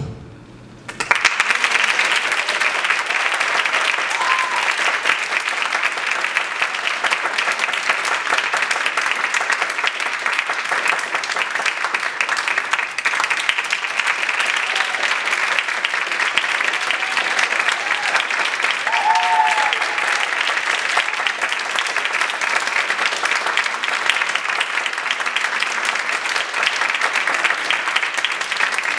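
Audience applauding, starting about a second in and continuing steadily as dense clapping.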